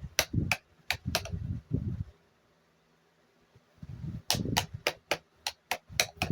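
Two runs of sharp clicks, about three or four a second, with dull handling knocks in the first run and a quiet pause between: a Lasko stand fan with a seized motor being worked by hand.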